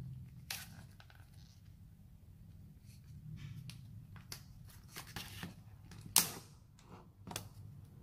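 Thin clear plastic of a triangular sandwich box crinkling and crackling as a sandwich is slid into it, with scattered sharp clicks, the loudest a little after six seconds in.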